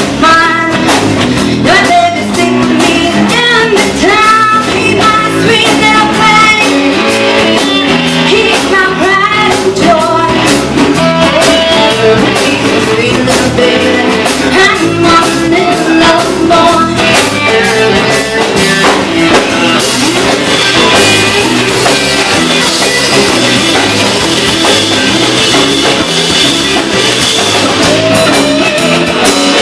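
Blues-rock song with singing over electric guitar and drum kit; the voice drops out about twenty seconds in, leaving the band playing.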